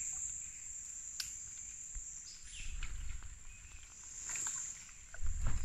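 Steady high-pitched insect buzz, like crickets, over a low rumble and a few faint rustles; the low rumble grows louder near the end.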